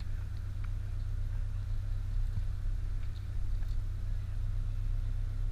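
Fishing boat's engine idling: a steady low rumble.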